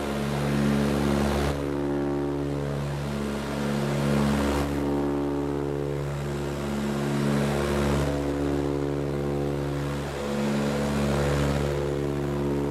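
Cabin drone of an Ilyushin Il-18's four Ivchenko AI-20 turboprop engines and propellers in flight: a steady hum of several tones over a rushing noise, swelling and fading every few seconds.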